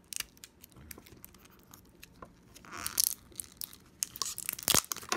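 Clear plastic packaging being picked at and peeled off a pack of batteries by hand: scattered clicks and crinkling, with a louder tearing rustle about three seconds in.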